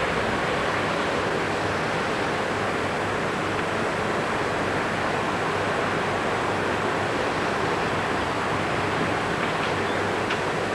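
Steady rushing noise of wind on a camcorder microphone as a British Rail Class 37 diesel locomotive approaches from a distance, its engine not clearly heard above the wind. A few faint clicks come near the end.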